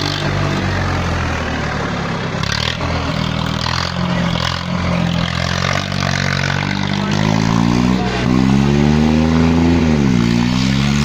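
Swaraj 855 tractor's diesel engine running steadily, then revving hard under load from about seven seconds in, dipping sharply near ten seconds and climbing again. Faint crowd shouts can be heard.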